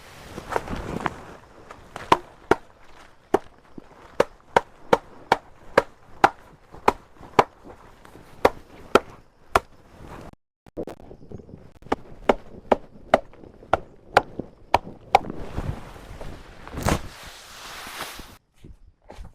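A steady series of sharp chopping blows into wood, about two or three a second, with a short break partway through. Near the end comes one louder thud amid rustling.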